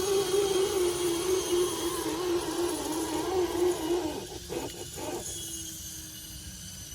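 Small electric motor and gears of an RC off-road crawler whining, the pitch wavering up and down as the throttle changes. The whine stops about four to five seconds in, leaving only a faint steady hum.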